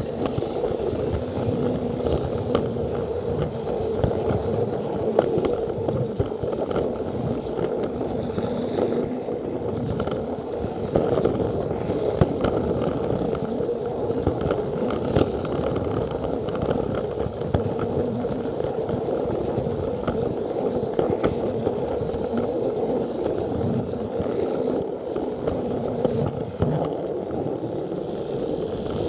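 Plarail toy train's battery motor and gears whirring steadily as it runs along plastic track, heard from on board, with many small clicks as the wheels cross the track joints.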